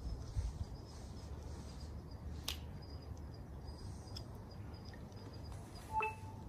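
Faint outdoor night ambience: a low rumble under faint, evenly repeated high chirps of insects. There is a single sharp click about two and a half seconds in, and a brief beep-like tone near the end.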